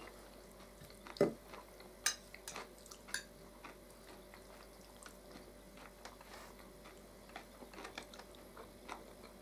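Quiet eating sounds: forks tapping and scraping on plates, with soft chewing. A scatter of small clicks, the loudest a dull knock about a second in, then several sharper clicks over the next two seconds.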